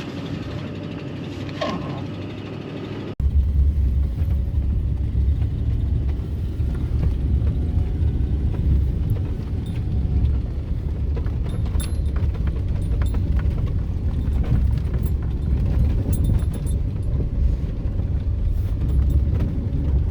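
Pickup truck running: a steady engine sound, then from about three seconds in a louder, steady low rumble of the truck on the move, with scattered light clicks.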